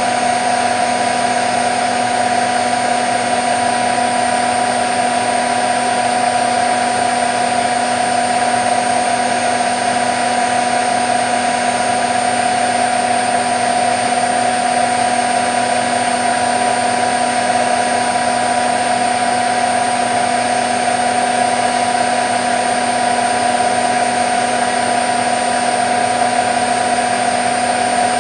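Candy Nova CN146 washing machine in the fast final spin of a cottons cycle, its drum and motor spinning at a constant high speed: a steady whine over an even rushing noise, with no change in speed.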